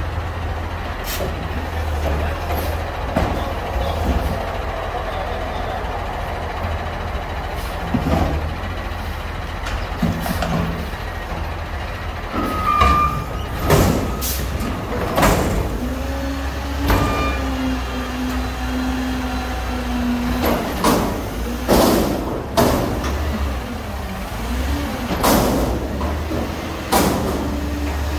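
Front-loader garbage truck running with its diesel engine droning steadily while its hydraulics pick up a metal dumpster. From about halfway through come repeated sharp clanks and bangs from the forks and bin, with a steady hydraulic whine for several seconds and again near the end as the dumpster is lifted.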